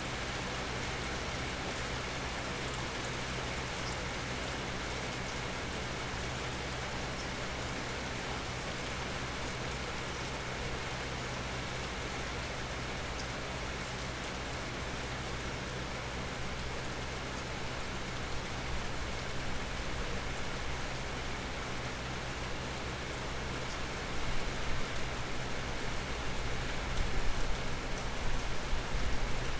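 Steady rain falling, an even hiss of drops. In the last few seconds uneven low thumps come in, louder than the rain.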